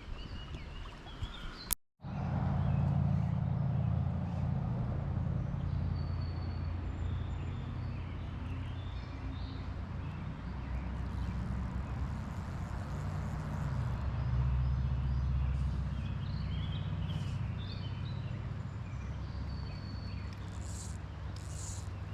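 A low, steady outdoor rumble with faint bird chirps scattered over it. A sharp click and a split-second dropout come about two seconds in.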